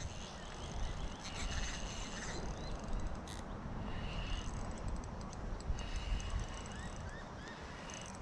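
Wind rumbling on the microphone, with faint short rising chirps from small animals scattered through it.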